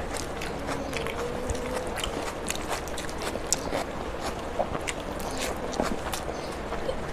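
Close-miked chewing of a mouthful of rice, with many short, sharp mouth clicks and smacks throughout.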